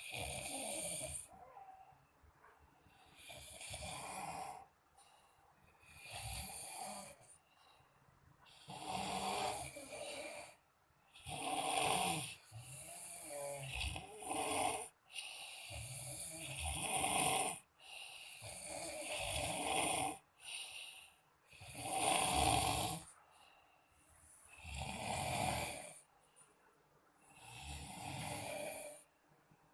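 Two sleeping men snoring, a snore about every two to three seconds.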